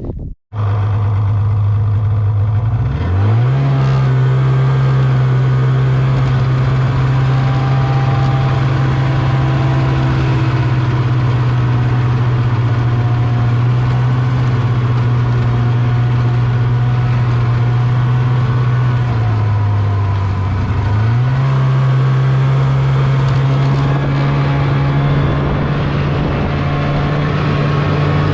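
Snowmobile engine under way, with one steady engine note. It speeds up about three seconds in, eases off briefly later on, then picks back up.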